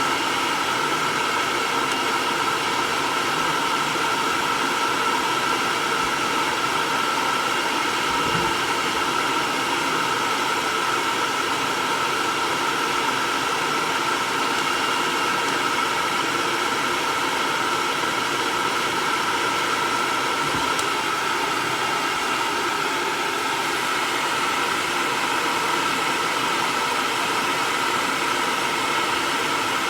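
Hair dryer running steadily, blowing air with a constant whine from its motor.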